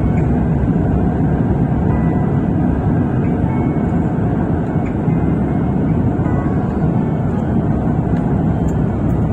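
Cabin noise inside an Airbus A350-1000 on final approach, with the flaps extended: a steady low rumble of its Rolls-Royce Trent XWB engines and the airflow, with faint steady tones above it.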